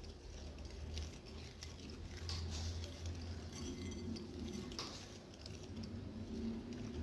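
A spoon stirring cookie dough in a bowl as flour is worked in, with faint scrapes and soft taps about once a second over a low steady hum.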